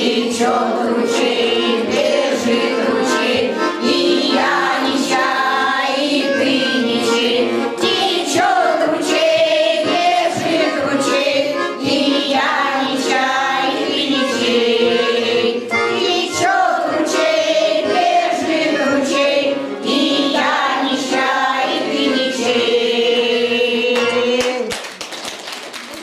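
Women's choir singing in unison over an accompaniment with a steady beat. The music fades out at the end.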